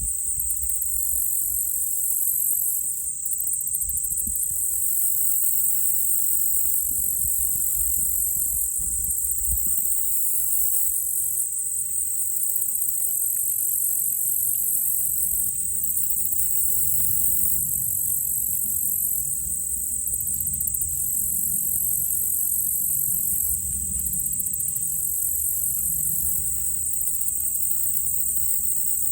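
A steady, high-pitched chorus of insects trilling without a break, over a low, wavering rumble.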